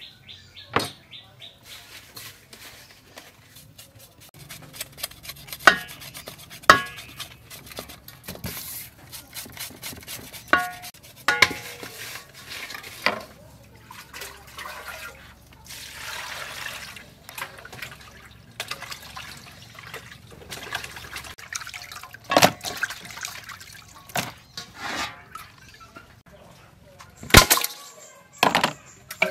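Fish being rubbed with salt in a large aluminium basin: wet rubbing and splashing, with repeated sharp clanks and knocks of the metal bowl.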